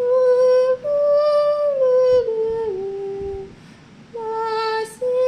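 Soprano recorder playing a short slurred phrase: steady, clean notes that step up once and then descend stepwise, followed by a brief pause and two more notes near the end. The first note is tongued and the following notes are slurred together.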